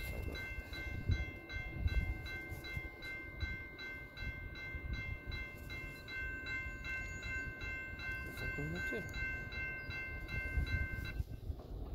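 Freight train rolling past, a steady low rumble of wheels on rail, with a bell dinging about three times a second over it that stops abruptly near the end.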